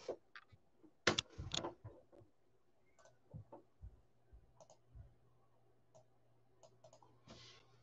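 A few faint, sharp clicks and taps: a quick cluster about a second in, then scattered single ticks, over a faint low hum.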